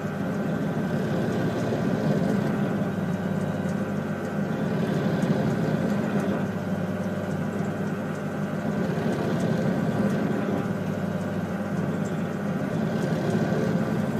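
Bench drill press running steadily as a 3 mm bit is fed down through a wooden lid to drill small holes, the motor hum swelling slightly several times as each hole is drilled.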